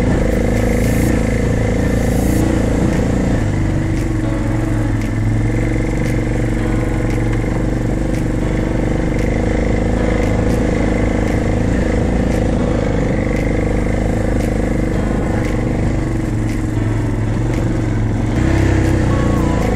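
ATV engine running at a steady pace while riding over a rough dirt trail, with frequent light clicks and rattles from the machine. The engine pitch shifts a little with the throttle, and it gets louder about eighteen seconds in.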